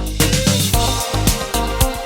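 Background music: an electronic track with a steady beat and bass line.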